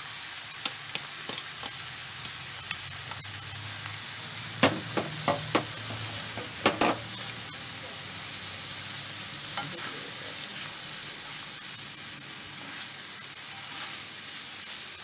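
Saltfish being stirred into onions and carrots frying in a granite-coated non-stick frying pan: a steady sizzle, with a few sharp knocks of the spatula against the pan around five seconds in and again near seven seconds.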